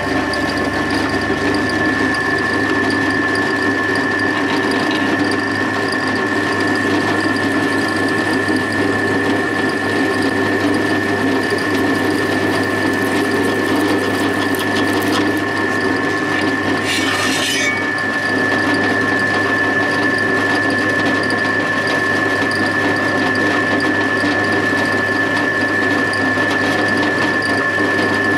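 Drill press running steadily with a constant whine and hum while countersinking holes in an aluminium plate, with a short burst of noise about seventeen seconds in.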